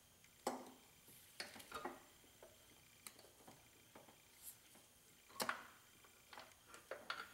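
Faint, scattered metallic clicks and taps from a socket on an extension as intake manifold bolts are threaded in by hand. The sharpest click comes about five and a half seconds in.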